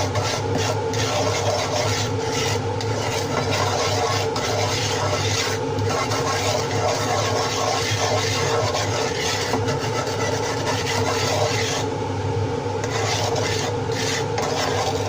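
A utensil stirring and scraping across the bottom of a pan as sugar melts in a little cooking oil, the first step of caramelising it, over a steady low hum.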